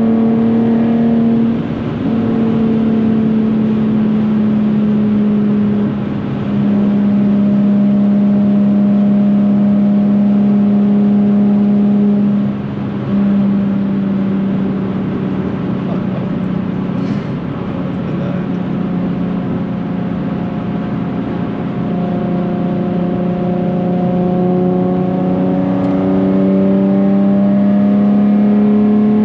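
Nissan 370Z's 3.7-litre V6 through a Tomei titanium cat-back exhaust droning at a steady pitch at motorway speed, heard from inside the cabin. The drone dips briefly a few times as the throttle eases, and it climbs slowly in pitch near the end as the car accelerates.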